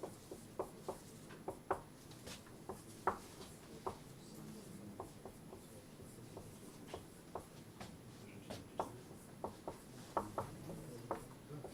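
Faint, irregular light taps and short scratches of someone writing by hand, a few every second.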